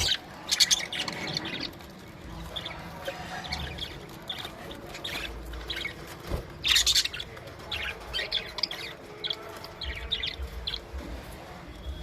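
A group of budgerigars chirping, many short calls overlapping, with louder bursts about half a second in and again near seven seconds.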